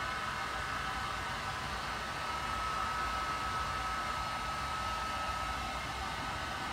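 Steady hotel-suite room noise: an even hiss with a faint high whine held at one pitch and a low rumble, with no sudden events.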